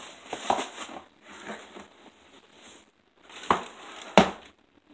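Rustling and crinkling as a cardboard box and packaging are handled, with two sharp knocks about three and a half and four seconds in, the second the louder.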